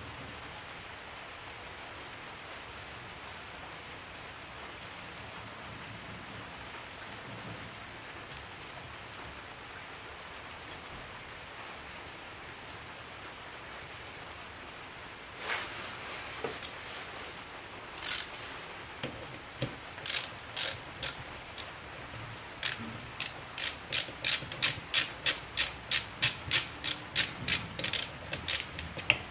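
Sharp metallic ratchet-like clicks as a part is worked by hand in the open crankcase of a Honda Super Cub C90 engine. A few scattered clicks come first, then a steady run of about two a second. Before them there is only a steady low hiss.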